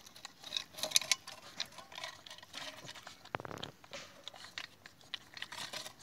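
Puppy lapping and slurping a raw egg mixture from a metal bowl: irregular wet clicks and smacks, with one sharper knock a little past halfway.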